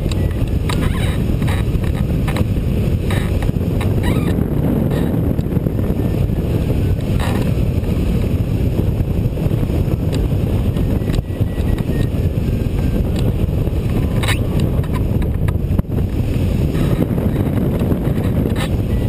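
Steady rush of airflow buffeting the microphone of a camera mounted on a rigid-wing hang glider in flight, a dense low rumble with no engine.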